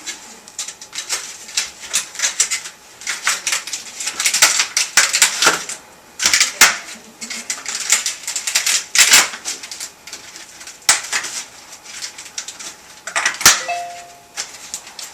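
Clicking, rattling and scraping as a new humidifier evaporator pad is slid into its bracket and the bracket and water trough are handled, with a sharp click near the end.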